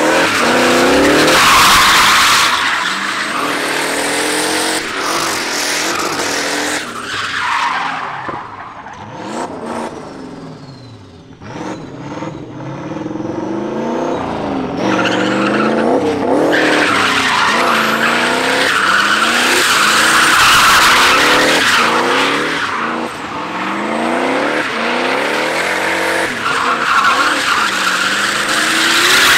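Drift cars sliding with tyres squealing and engines revving up and down in quick swings. The noise dies down briefly near the middle, then picks up again with another long slide.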